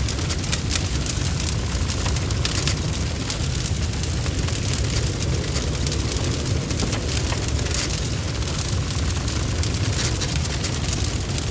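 Large barn fire blazing: a steady low roar under dense, irregular crackling and spitting.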